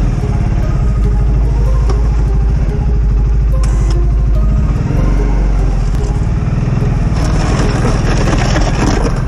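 Segway Snarler ATV engine running steadily under load as the machine pushes snow with its front plow blade. A louder rushing hiss joins from about seven seconds in.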